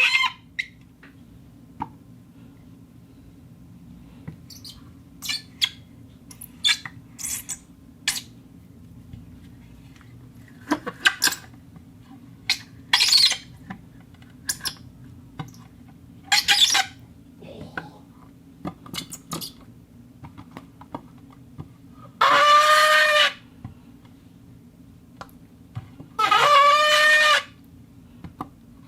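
Friction squeaks from objects being rubbed: many short, sharp squeaks and chirps, then two longer, pitched squeals of about a second each in the last third.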